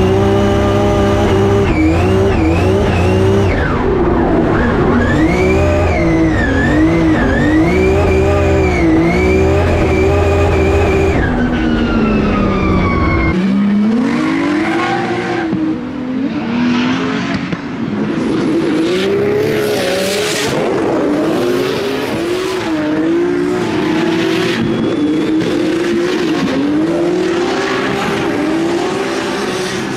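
Nissan S14 drift car's 2JZ straight-six revving hard up and down at high rpm, heard from inside the cabin with a heavy low rumble and tyres squealing. About thirteen seconds in, the sound switches to trackside audio of two drift cars revving and sliding in tandem, with repeated bursts of tyre squeal.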